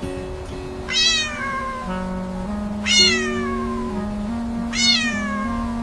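A cat meowing three times, each meow about a second long and falling in pitch, over soft background music with held notes.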